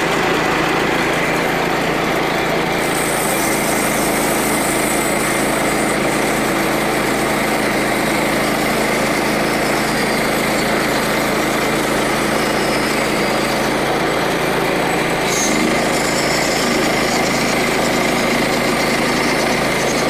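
Frontier OS27 bandsaw mill's small gasoline engine running steadily at full throttle while the band blade cuts through a wooden block. A higher cutting hiss joins the engine about three seconds in.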